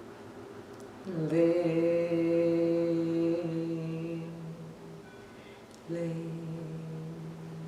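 A woman's voice chanting the qigong healing sound 'ling' for the liver, twice, each held as a long steady hum on the 'ng'. The first starts about a second in with a short slide up into the note; the second starts near six seconds.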